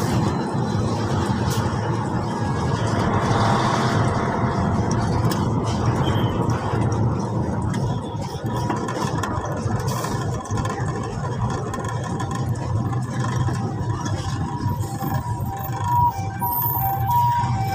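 Isuzu Giga ten-wheeler truck's diesel engine running steadily under way, with road noise, heard from inside the cab.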